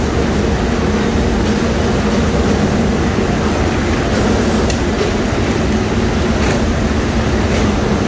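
Steel rolling mill's machinery running with a loud, steady drone and an unbroken low hum, with a few faint metallic clinks.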